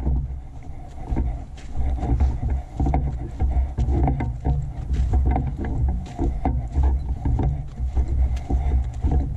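Footsteps crunching on dry grass and dirt while walking, with heavy low thuds at each stride from the jostled body-carried camera.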